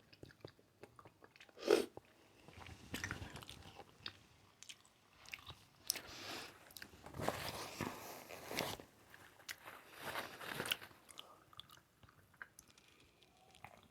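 Close-miked chewing and biting while eating a seafood boil, with short sharp clicks and mouth noises coming in irregular clusters, busiest in the middle.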